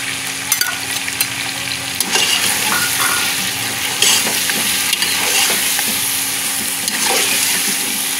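Potatoes, sliced tomatoes and onions sizzling steadily as they fry in oil in a pot, stirred with a slotted metal spoon whose scrapes and clicks against the pot come through at intervals.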